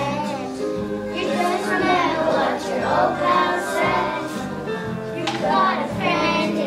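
A group of young children singing together over instrumental accompaniment with held notes.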